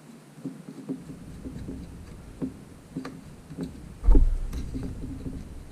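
Small clicks and knocks of hands working on the touchscreen's plastic housing and circuit board, with one louder low thump about four seconds in.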